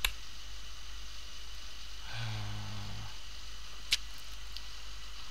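Computer keyboard keystrokes: a single key click at the start and another near the end, with a man's low closed-mouth 'hmm' lasting about a second between them, over a steady electrical hum.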